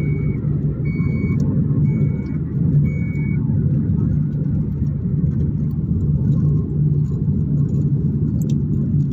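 Car cabin noise while driving at road speed: a steady low rumble of tyres and engine. During the first three seconds or so a short high beep repeats about once a second, then stops.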